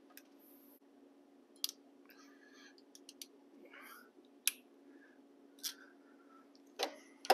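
Scattered sharp clicks and snaps of a handheld wire crimper working a small crimp connector onto a fan wire, with light handling rustle of the wire; the loudest clicks come near the end.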